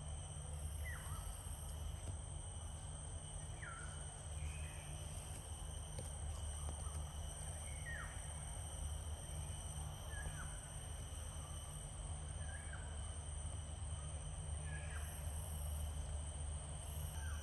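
Natural ambience: a steady high-pitched insect drone with a bird repeating a short, downward-sliding call every few seconds, over a low rumble.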